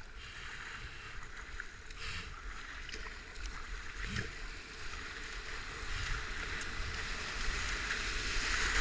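Rushing whitewater of a river rapid, growing louder as the kayak closes in on it, with a few splashes of the kayak paddle.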